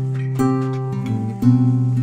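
Background music: an acoustic guitar playing chords, with new chords struck about half a second in and again about one and a half seconds in.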